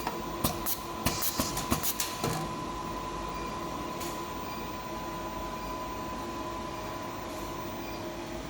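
Automatic coaxial cable cut-and-strip machine running: a quick series of sharp mechanical clicks over the first couple of seconds, then a steady motor hum with a constant high whine.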